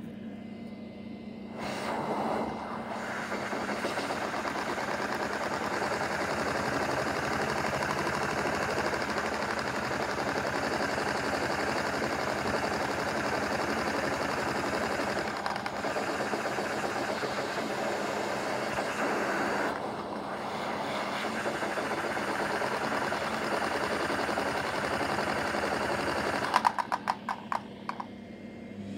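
Lego butterfly-valve vacuum engine run on a vacuum cleaner's suction, spinning at high speed with a steady rush of air and a fast mechanical whirr. Near the end the suction is taken away and the engine gives a quick run of sharp clicks as it runs down.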